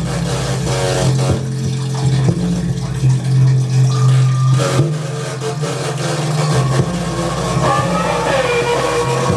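Live experimental electronic music: a loud, steady low droning buzz with stuttering rattles over it, and a wavering tone that bends in pitch near the end.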